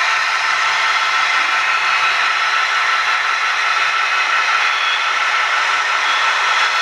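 Steady hiss with a light rattle from an HO-scale model steam locomotive, its sound decoder and smoke generator running.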